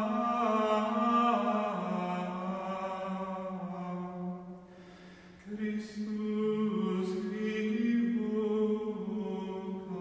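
Background music of voices singing a slow chant in long held notes that step slowly up and down, with a short pause about halfway through before the singing resumes.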